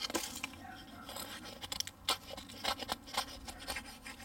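Gerber Pack Hatchet's blade shaving a thin stick of dry wood into kindling: a run of short, uneven scraping, crackling cuts, two or three a second, some sharper than others.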